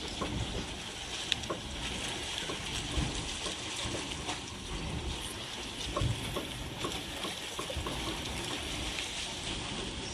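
Hot spring water churning with a steady rush, broken by many small pops and splashes.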